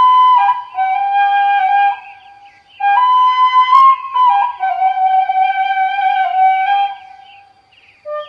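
Background music: a flute playing a slow melody of long held notes, pausing briefly about two seconds in and fading out near the end.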